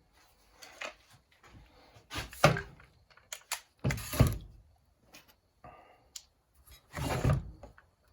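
Stihl 017 chainsaw's recoil starter rope pulled three times, each pull half a second to a second long, with the engine turning over against good compression; small clicks of handling between the pulls.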